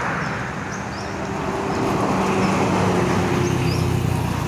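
Bus engine running as it drives past, with road traffic noise; it grows louder about two seconds in.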